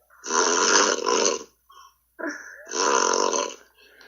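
A man snoring heavily, heard over a Skype call: two long, loud snores, each a second or more, and a fainter breath near the end.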